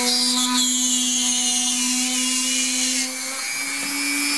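Rotary tool mounted in a drill press stand, running with a steady whine as its bit bores into a baked polymer clay bead. A higher cutting noise rides over the motor from about half a second in until about three seconds, then the motor runs on alone.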